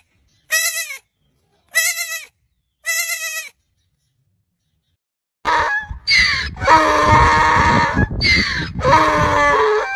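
A young goat bleats three times in short calls about a second apart. After a pause of about two seconds a donkey brays loudly, a long run of alternating hee-haw calls.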